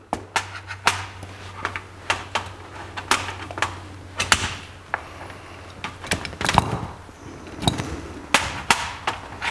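Irregular light clicks and knocks of small metal parts being handled: the brass throttle valves being worked out of the throttle shafts of a Rochester 4-Jet carburetor's cast throttle body, one after another.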